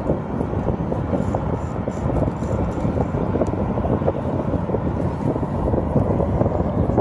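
Wind buffeting the microphone: a steady, low rumbling roar with no distinct tone or rhythm.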